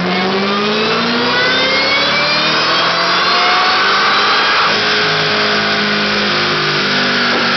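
Supercharged 5.4-litre V8 of a Mustang with a GT500 powertrain running a full-throttle pull on a chassis dyno. The revs climb steadily for the first four to five seconds, then level off.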